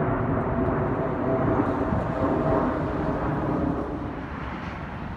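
Jet engines of a four-engined Boeing 747 freighter climbing overhead after takeoff: a steady, loud roar with a droning tone through it, dropping away about four seconds in.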